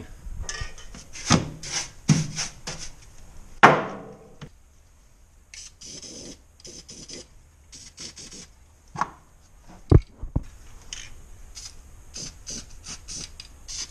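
Short, irregular rubbing strokes as an anti-rust coating is worked onto the edges of holes freshly drilled in a pickup truck bed, with a sharp knock about three and a half seconds in and a dull knock near ten seconds.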